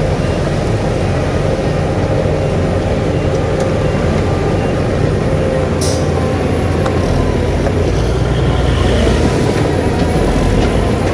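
Heavy diesel engine of a crawler bulldozer running steadily, with track clatter and a few sharp metallic clanks, the clearest about halfway through.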